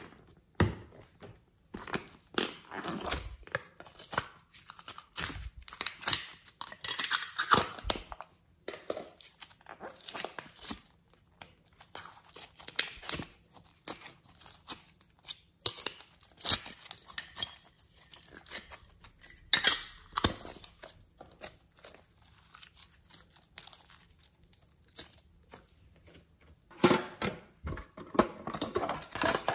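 Hands handling and opening puzzle-shaped plastic clay containers and packaging: irregular crinkling, peeling and clicking of plastic in short bursts with brief gaps, busiest near the end.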